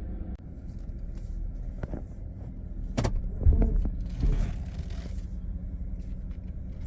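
Vehicle engine running with a steady low rumble, heard from inside the cabin, with a couple of sharp clicks and low thumps around the middle.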